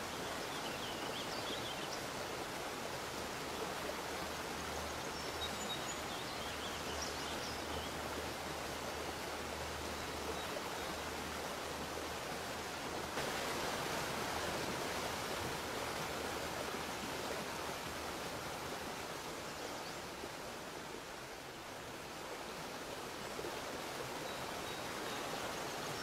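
Steady rushing of a waterfall: a continuous, even noise of falling water, a little louder from about halfway through, with a few faint high chirps in the first several seconds.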